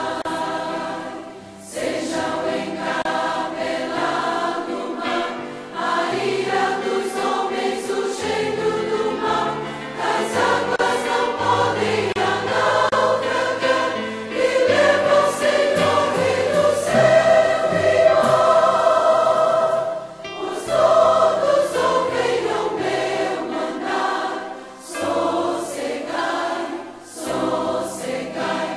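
A choir singing a sacred song in long phrases, with brief breaks between phrases.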